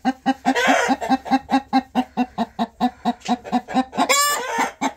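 A hen sitting in a nesting box, growling in a fast, steady run of low clucks about five or six a second, with one loud squawk just after four seconds in. This is her protest as a hand reaches under her to take the eggs.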